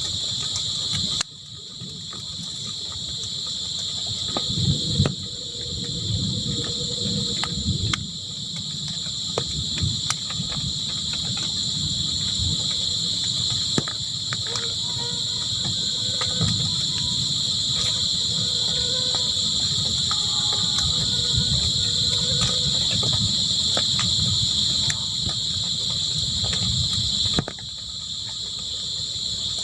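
Crickets chirring in a steady, continuous high chorus over a low rumbling background noise. The sound drops away abruptly about a second in and again near the end, then swells back.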